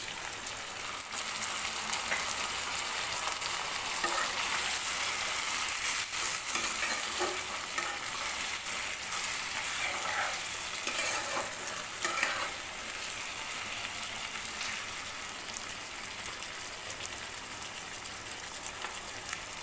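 Chicken pieces in a thick spiced bhuna gravy sizzling steadily in a frying pan, with a spatula stirring and scraping through them now and then. The sizzle comes from a little water just added to the frying masala.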